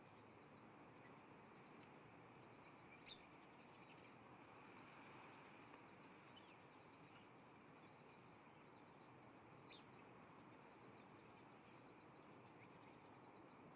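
Faint wild birds calling: a soft, high three-note call repeated about once a second, with two brief sharp chirps, over a steady background hiss.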